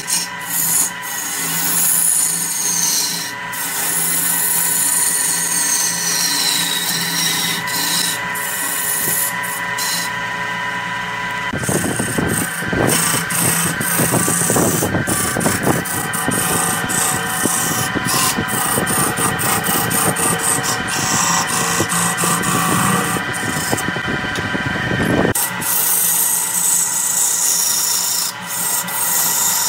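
Wood lathe running while a hand-held gouge cuts into a spinning redwood blank: a steady scraping rasp over the machine's hum. For about fourteen seconds in the middle the cut turns heavier and rougher, then stops abruptly.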